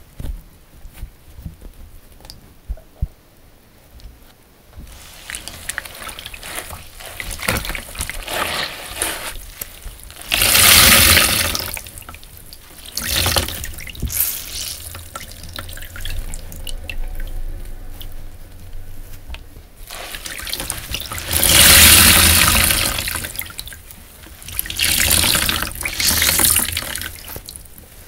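Sponges being rinsed under a running tap and squeezed out. There are faint wet clicks at first; from about five seconds in, water runs steadily, with four loud gushes as the sponges are wrung.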